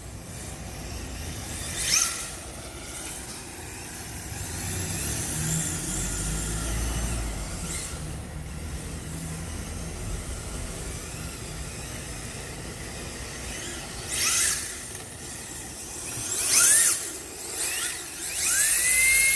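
Yokomo YD-2S electric RC drift car driving on a wet concrete court: short bursts of tyre hiss with a motor whine that glides up and down with the throttle, the strongest bursts coming in the last few seconds.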